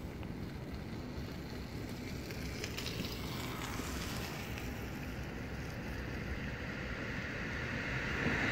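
Exo commuter train approaching in the distance: a low steady rumble that slowly grows louder, with a rising hiss in the upper range.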